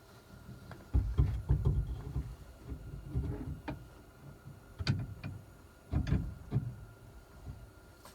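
Muffled bumps and sharp clicks of things being moved and knocked close to the microphone, in clusters about a second in, near five seconds and around six seconds.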